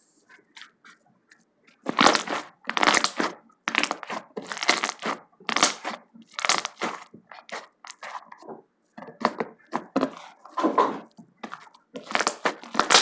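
Slime being pressed and smashed by hand: a run of short, sharp pops, about one or two a second, starting about two seconds in.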